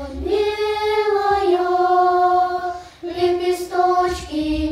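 A choir of young girls singing in unison, holding long notes, with a short break for breath about three seconds in.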